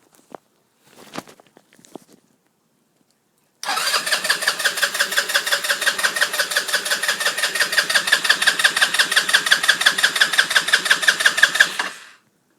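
A Baja SC150 150cc scooter engine is cranked by its electric starter for about eight seconds with an even pulsing rhythm, then stops without ever catching. The scooter will not start.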